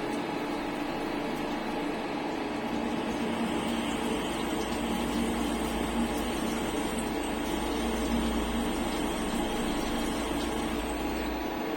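CNC turning-milling centre running a machining cycle: a steady machine hum with several held tones. A deep low rumble comes in about a second in and drops out near the end.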